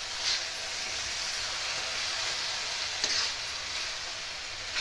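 Cabbage sabzi sizzling in a kadhai as it is stirred with a spatula, with a couple of brief scrapes.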